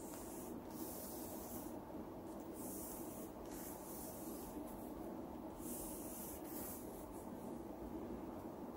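Faint room tone: a low steady hum with a few soft hissing rustles, a few seconds apart.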